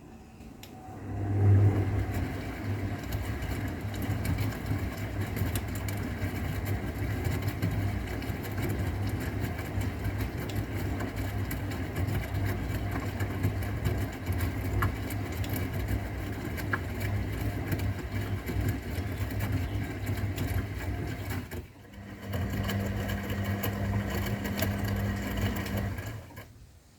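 Old AEG Öko_Lavamat 693 washing machine running: its motor starts about a second in with a steady low hum, cuts out briefly about 22 seconds in, starts again, and stops near the end.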